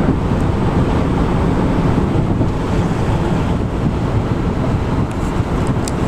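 Steady road and wind noise inside a moving car at freeway speed, a low rumble with an even rush of air.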